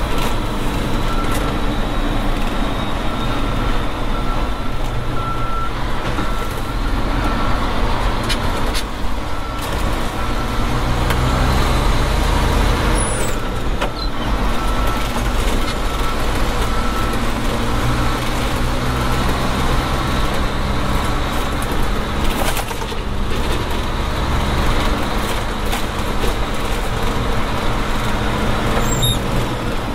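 Tadano GT550E truck crane's Nissan Diesel PF6TB six-cylinder diesel engine running under way, heard from inside the closed cab, its pitch rising and falling with throttle as the crane is driven. A brief burst of noise cuts in about two-thirds of the way through.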